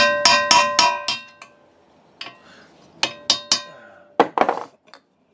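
Hammer tapping a chisel against a rusted, seized bearing retaining clip in a steel steering knuckle, each strike ringing like struck metal. A quick run of about seven taps is followed by a pause of about a second, then several more spaced taps.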